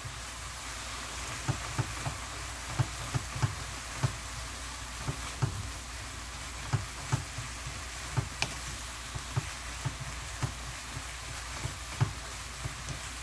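Beef, oyster mushrooms and sliced vegetables sizzling in a frying pan while a wooden spatula stir-fries them, with irregular soft knocks of the spatula against the pan.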